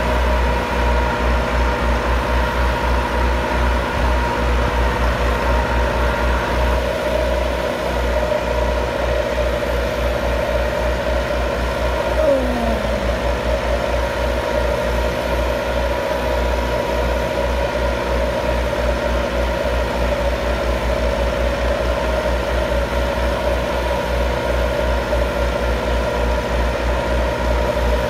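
Massey Ferguson 375 and 385 four-cylinder diesel tractor engines running steadily under load while driving a 60-blade rotavator, with a pulsing low rumble. A brief falling whistle comes about twelve seconds in.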